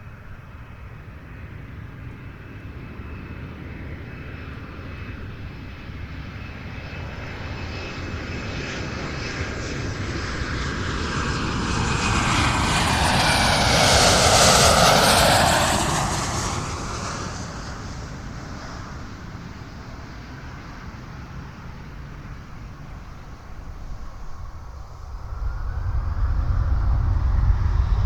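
Airliner on landing approach passing low overhead: its engine noise swells to a peak about halfway through, the whine dropping in pitch as it goes by, then fades away. A low rumble rises near the end.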